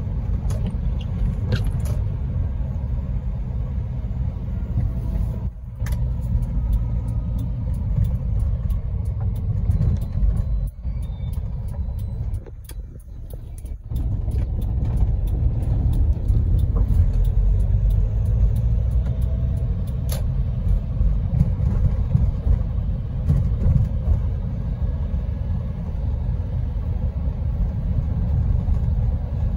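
Steady low rumble of a car driving, heard from inside the cabin. It drops quieter for a second or two about halfway through.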